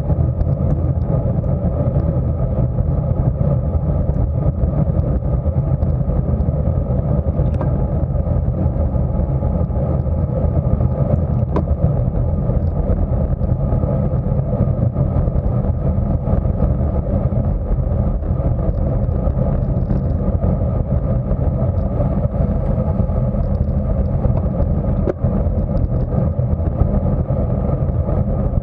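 Steady wind rush buffeting the microphone of a camera mounted on a road bike moving at about 25 mph, mixed with tyre noise on asphalt. It is a loud, unbroken low rumble.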